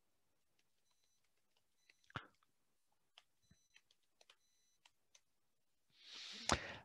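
Faint computer keyboard keystrokes as a word is typed, with one sharper click about two seconds in and a short soft rush ending in a click near the end.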